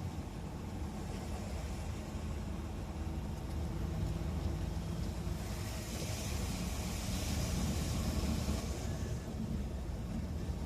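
Car driving on a rain-soaked road: a steady low rumble, with a hiss of tyres through water that swells about halfway through and fades a few seconds later.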